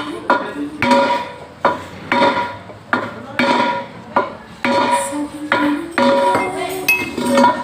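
Hammer blows on a bent alloy mag wheel, struck over and over at about two a second, each blow ringing like struck metal while the rim is knocked back into shape.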